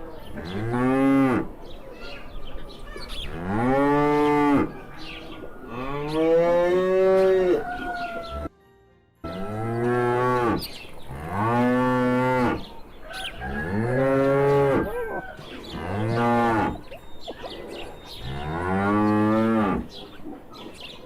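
Ox lowing: about eight long moos in a row, each about a second or so, rising and then falling slightly in pitch. There is a brief silent break after the third moo.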